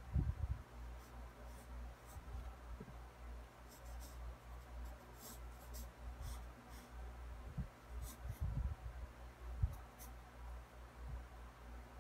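Pencil scratching on drawing paper in short, scattered sketching strokes, with a few soft low thumps now and then.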